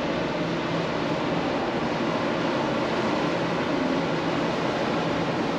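Steady hum and rushing noise from a large docked car ferry's running machinery and ventilation, even throughout, with a faint low drone under it.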